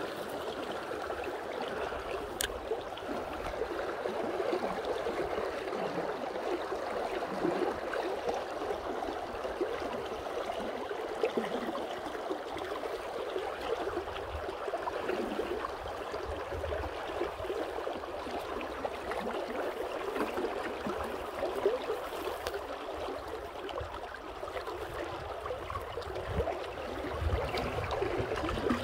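River water running and gurgling steadily, with a single sharp tick about two and a half seconds in.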